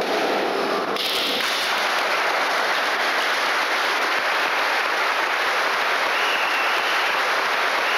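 Audience applauding, a dense steady clapping that starts about a second in at the end of the nunchaku kata.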